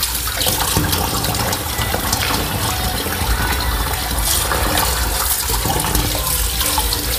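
Tap water running steadily into a stainless steel sink and bowl, splashing over raw mutton pieces as they are rinsed by hand.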